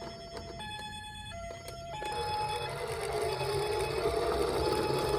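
Toy ambulance's electronic two-tone siren, switching back and forth between a lower and a higher pitch about every half second. From about two seconds in, a rolling, rushing noise grows louder under it, fitting the minicar running down the slope.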